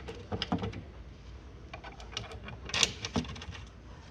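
Scattered light clicks and knocks of wooden bed-frame parts being handled and fitted together by hand, with a few sharper knocks about three seconds in.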